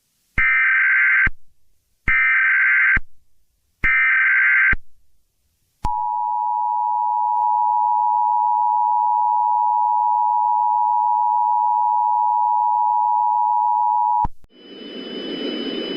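Emergency Alert System (EAS) tones. First come three short SAME header data bursts, each about a second long with a second's gap between them. Then the two-tone attention signal holds steady for about eight seconds and cuts off, announcing that an emergency message follows.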